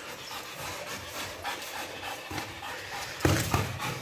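A dog panting, with a louder thump about three seconds in.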